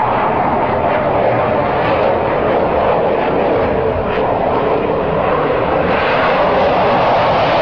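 Fighter jet flying past low, its jet engine noise loud and steady.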